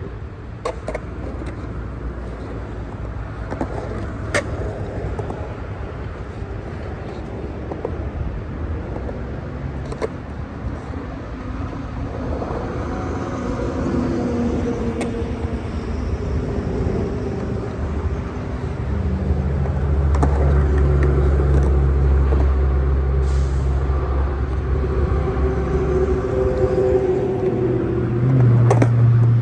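A motor vehicle's engine running close by, getting louder about halfway through and settling into a deep, steady hum. A few sharp knocks come through now and then.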